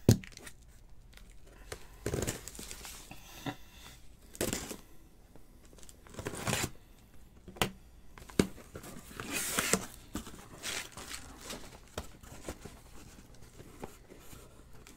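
Cardboard case packaging being torn open, ripping and crinkling in irregular bursts, with a sharp click at the start and a longer rip about nine to ten seconds in: a fresh, sealed case of trading-card boxes being opened.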